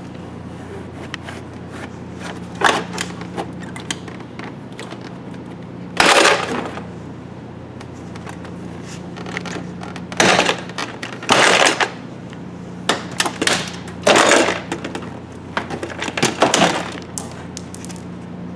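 Plastic door panel retaining clips popping loose as the interior door panel of a 1998 Chevy GMT-400 truck is pried and pulled off. It comes as a string of sharp snaps and cracks of plastic, over a steady low hum.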